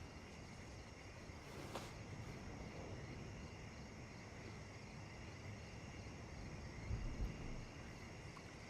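Faint steady chorus of crickets chirring, with a brief click about two seconds in and a low thump late on.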